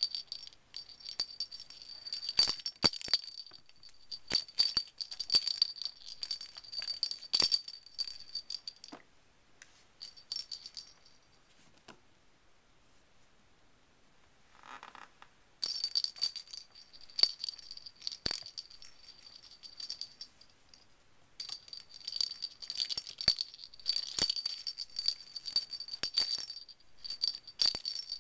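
A bell cat toy jingling and rattling in irregular spurts as a kitten bats and chases it across a wooden floor, with light knocks among the jingles. The jingling stops for about six seconds in the middle, then starts again.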